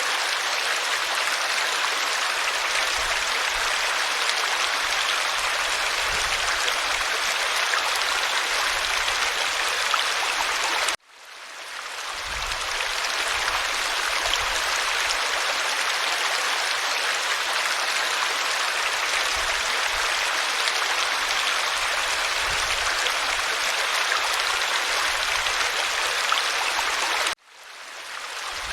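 Mountain river rushing steadily over rocks in an even, unbroken wash. It cuts out abruptly twice, about eleven seconds in and again near the end, each time swelling back up over a second or two.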